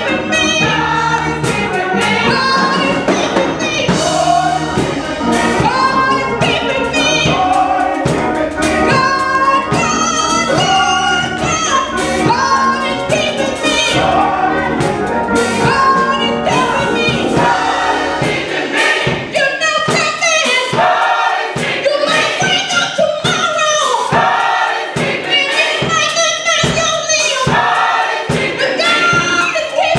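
Gospel church choir singing together, with a woman leading on a handheld microphone over a low instrumental backing. The deep bass drops away about two-thirds of the way through, leaving the voices with sharper beats.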